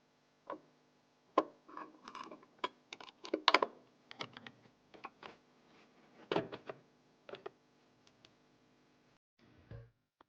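Irregular clicks, taps and short scrapes of computer hardware being handled and fitted during a PC build. They come thickest in the first few seconds, with another cluster about six seconds in.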